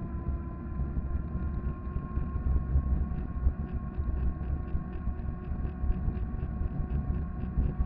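Riding an electric fat bike: wind buffeting the microphone and tyre rumble on asphalt, with the electric drive motor's steady whine. A faint regular ticking, about three a second, starts a second or two in.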